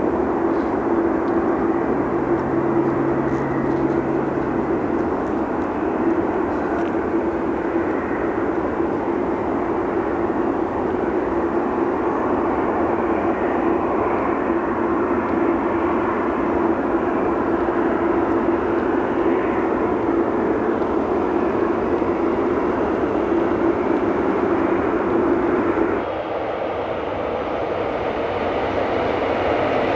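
Jet airliner engines running: a steady rush with one constant hum held through it. Near the end the sound changes abruptly to a duller rush.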